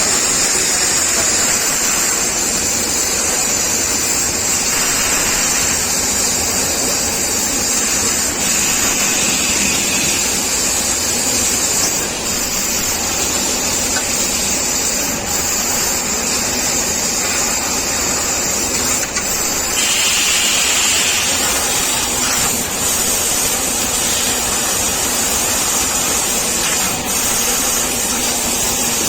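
CNC laser cutting machine running: a steady rushing hiss of air with a high, even whine over it.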